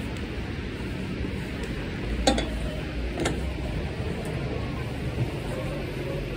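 Phone microphone rubbing against jacket fabric, a scratchy rustle over steady street noise, with two knocks about a second apart a couple of seconds in.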